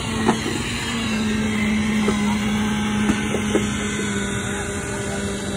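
An engine running steadily with a constant low hum, with a few scattered knocks and clatter of work on wet concrete.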